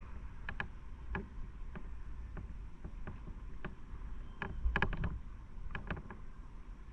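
Small waves lapping among concrete breakwater tetrapods, making irregular sharp plops and clicks, several in quick pairs, the busiest cluster about two thirds of the way through, over a steady low rumble.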